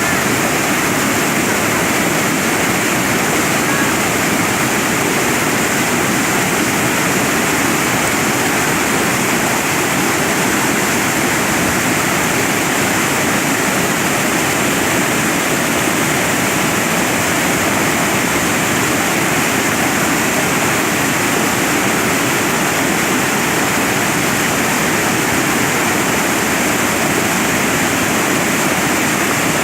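Waterfall on the Mogi-Guaçu River rushing loud and steady, an unbroken roar of falling water with no let-up.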